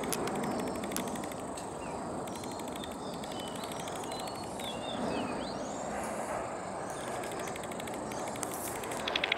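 Outdoor ambience: a steady, even background hiss, with a few short bird chirps about five seconds in.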